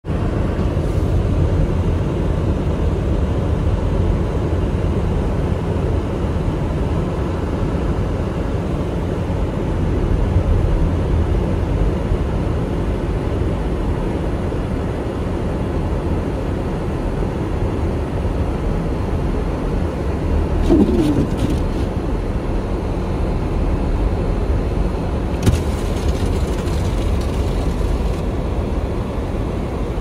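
Steady low rumble of a car driving on a snow-covered road, heard from inside the cabin, with a brief squeak and, a few seconds later, a single sharp click.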